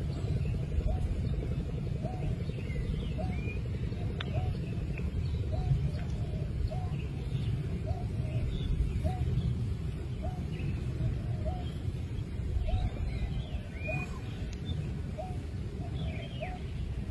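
A steady low rumble, with an animal calling over it in a regular series of short, hooked low notes, about one every 0.7 seconds, and a few faint higher chirps now and then.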